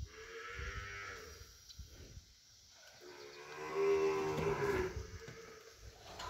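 Heifer in a hard labour bellowing twice while her calf is pulled out by hand: a short call in the first second, then a longer, louder one about three seconds in.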